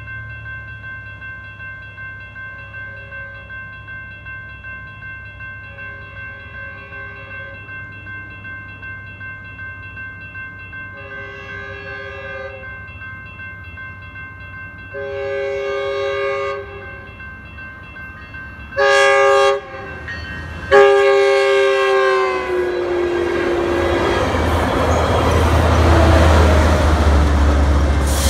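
Railroad crossing bell ringing steadily while a Metrolink commuter train sounds its horn for the crossing: a few faint blasts, then two long blasts, a short one and a long one. From about 23 s the train passes at the crossing with a loud, rising rumble of wheels and diesel engine.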